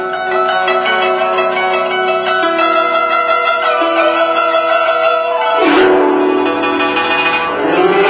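Guzheng being played: quick plucked notes over held, ringing tones, then about five and a half seconds in a sweep across the strings, with another sweep just before the end.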